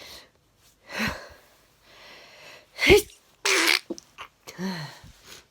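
A woman sneezing hard, with breathy gasps around it. The loudest sneeze comes about three seconds in, followed at once by a forceful breathy burst. A short voiced sound falling in pitch comes near the end.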